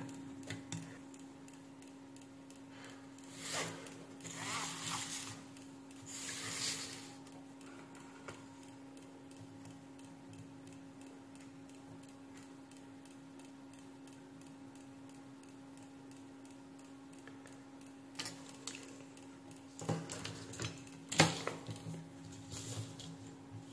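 Rapid, even ticking from a faulty 12 V 10 A switch-mode power supply over a steady low hum: the supply is cycling instead of running, with low, fluctuating output, a fault the repairer places on the secondary side. Rustles and knocks of test probes being handled a few seconds in and near the end.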